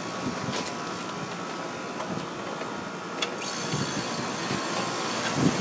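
Air-conditioning condensing unit starting up on its newly replaced contactor: over a steady machinery hum, a click about three seconds in as the power comes on, then the unit runs with a higher whine added. It coming on and running shows the new contactor is wired correctly and the transformer and fuse were not blown.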